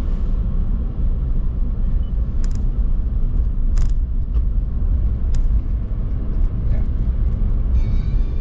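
Steady low rumble of a car driving slowly, heard inside the cabin: tyre and engine noise, with a few sharp clicks. Faint music comes in near the end.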